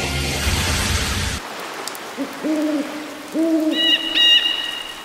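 Music stops about a second and a half in, then an owl hoots twice, about a second apart, with thin high whistling calls over the second hoot.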